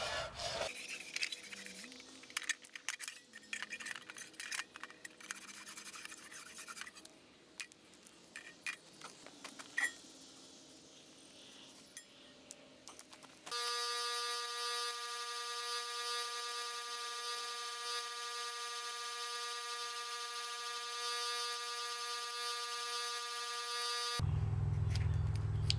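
Brush scrubbing in a metal pan of liquid, played sped up as a fast run of scratches and clicks. Then a bench-grinder wire wheel spinning, its motor hum sped up into a steady high whine with overtones. Near the end a lower, rougher sound joins.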